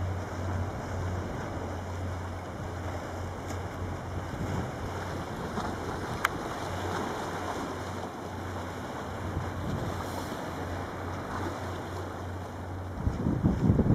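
High-speed catamaran passenger ferry Valö running at speed: a steady low hum with the rush of its wake under wind on the microphone. The wind gusts loudly near the end.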